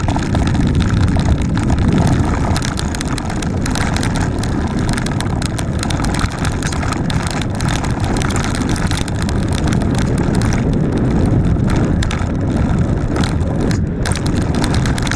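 Mountain bike rolling fast down a dirt trail: wind rushing over the microphone with steady tyre rumble, and frequent small knocks and rattles as the bike runs over bumps.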